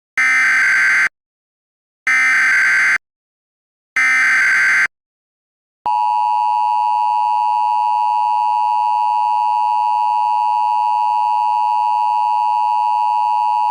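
Emergency Alert System header: three one-second bursts of digital data tones about a second apart, then about six seconds in the long, steady EAS attention tone begins.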